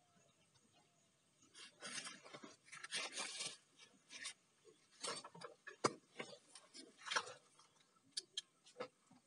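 Hands handling and adjusting a chainsaw bar attachment on an angle grinder: faint irregular rustling and rubbing with several sharp clicks, the grinder not running.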